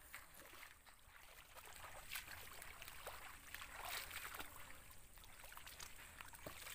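Faint splashing and sloshing of shallow muddy pond water, with a few small splashes as a hoop scoop net is dipped and lifted.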